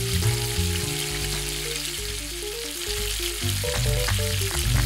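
Scallion pancake batter sizzling and frying in a pan of hot oil as scoops of it are poured in, with background music underneath.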